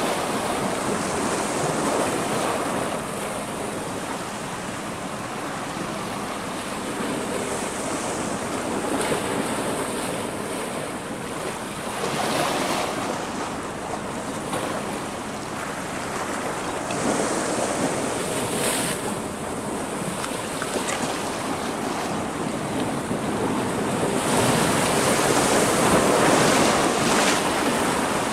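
Sea surf washing and breaking against a rocky shoreline, a continuous rush that swells and eases every few seconds and grows louder near the end, with wind buffeting the microphone.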